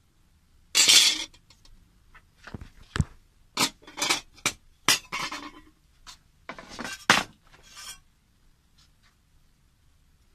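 Thin sheet-metal test plate handled and knocked about: a loud rattling scrape about a second in, then a string of metallic clinks and short scrapes over the next several seconds.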